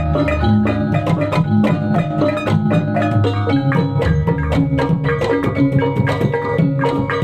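Gamelan music accompanying kuda lumping: struck metallophones and drums play a fast, steady pattern of pitched notes over a low drum beat.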